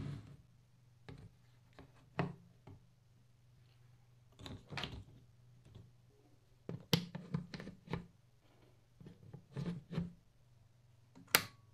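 Scattered clicks and small knocks of hands setting up a plating bath: crocodile clips snapped onto the electrodes at the rim of a plastic tub, and banana-plug test leads pushed into a bench power supply, with the sharpest click near the end. A faint low hum runs underneath.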